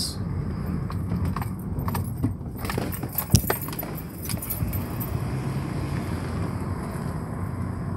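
Steady low rumble of a car driving slowly, heard from inside the cabin, with a scatter of light clicks and rattles in the middle, the sharpest a little over three seconds in.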